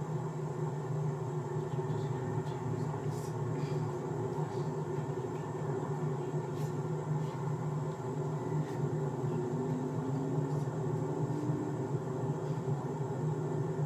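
Steady low hum and rumble inside a car's cabin while the car stands idling in traffic, with a few faint clicks.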